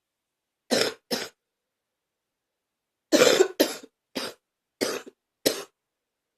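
A person coughing, part of a lingering cough: two coughs about a second in, then a fit of five quick coughs from about three seconds in.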